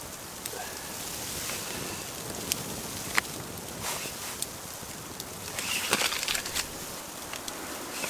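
Wood campfire burning with scattered sharp crackles and pops over a steady hiss, and a busier stretch of crackling and rustling a little past the middle.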